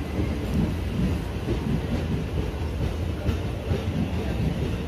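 Passenger train coaches rolling past along the platform: a steady low rumble with uneven knocks from the wheels.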